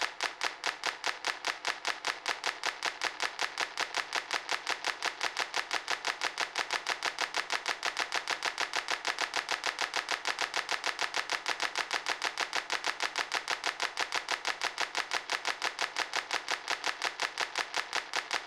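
A fast, perfectly even train of sharp clap-like clicks, roughly five a second, steady in level.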